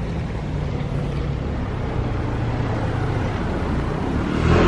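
A motor vehicle's engine running, a steady low drone that grows louder near the end.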